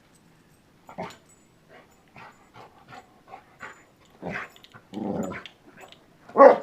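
Springer spaniel puppy making a string of short yips and growly grunts, the loudest just before the end.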